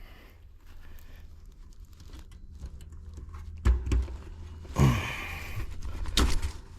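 Rustling and a few sharp knocks and clatters of hands handling wires and parts, over a low steady hum.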